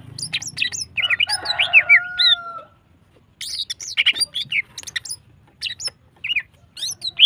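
Female green leafbird (cucak ijo) in breeding condition calling in rapid bursts of sharp chirps and short whistled glides. There is a brief pause about three seconds in before the calling resumes.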